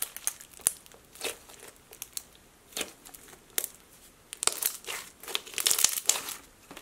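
Crunchy clear slime loaded with small round beads being stretched and then squeezed by hand, giving irregular crackles and crunches. The crackling is sparse at first and grows thicker and louder about halfway through, as the hands start squeezing.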